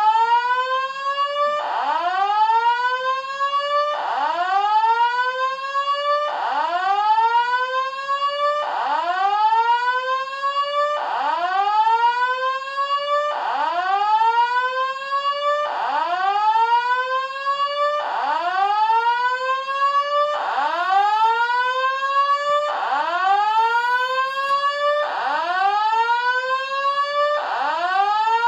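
Electronic fire alarm sounder playing a 'whoop' tone: a loud rising sweep that cuts off and starts again about every two and a quarter seconds, repeating steadily about a dozen times.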